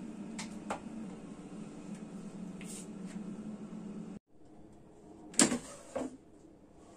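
Plastic basket of a Philips Essential air fryer pulled open, two sharp clunks about half a second apart. Before it, a few light taps of dough pieces set on a baking tray over a steady low hum that stops abruptly partway through.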